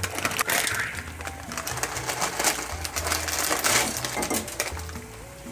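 Water and vegetables boiling in a pan, with a dense crackle of small clicks, as dry instant noodle cakes are dropped in and shaken out of a crinkly plastic packet.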